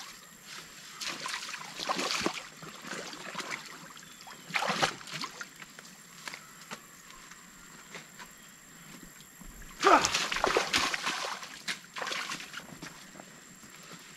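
Creek water sloshing and splashing in irregular bursts as a heavy cut log from a beaver dam is shifted through it, loudest in a longer spell about ten seconds in.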